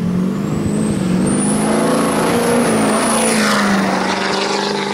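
A 2007 Chevy 3500's 6.6 L Duramax LBZ V8 turbodiesel accelerating past, with a high thin whistle from its Garrett PowerMax upgrade turbo rising about a second in. The engine note and whistle drop in pitch as the truck goes by, about three and a half seconds in, then fade.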